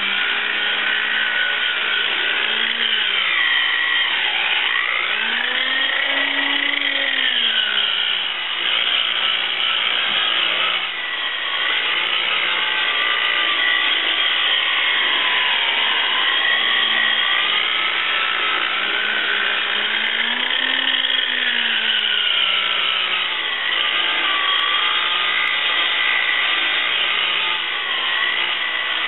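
Harbor Freight electric rotary buffer with a wool pad running continuously while polishing fiberglass gel coat to a shine; its motor pitch sags and rises a few times.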